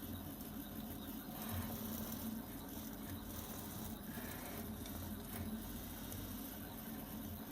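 Prusa i3 3D printer driven by Leadshine servo motors, printing: a low motor hum that keeps shifting in pitch and level as the axes move and change direction.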